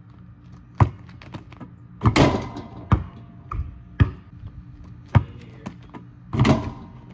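Basketball bouncing on hard ground in single sharp impacts about once a second. About two seconds in comes a longer clatter of a dunk hitting the rim and backboard, and a similar clatter follows near the end.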